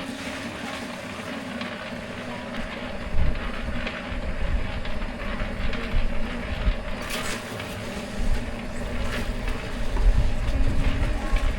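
A machine's motor running steadily, with scattered knocks and rattles over it; wind rumbles on the microphone near the end.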